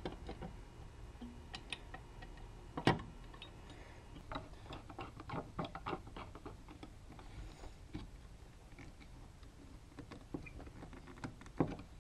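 Scattered light clicks and taps of steel and cast-iron hand-plane parts (Stanley No 5 iron, chip breaker and frog) being handled and fitted together on a wooden bench, with a louder knock about three seconds in and another near the end.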